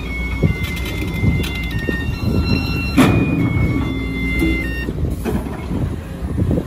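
Sumitomo hydraulic excavator's diesel engine working under load while it loads a dump truck, with high squealing tones that step up and down in pitch. About three seconds in, a heavy thud as a bucketful of dirt drops into the steel truck bed.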